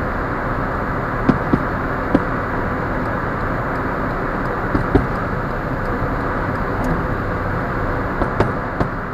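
Steady road and engine noise of a car driving on a highway, heard from inside the cabin, with scattered sharp pops about eight times through the stretch.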